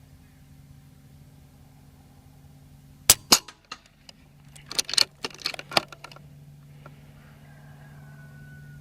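A .25 air rifle fitted with a 3D-printed LDC suppressor fires: a sharp crack, with a second crack about a quarter second after it. Then comes a quick run of sharp metallic clicks, like the action being cycled for the next shot.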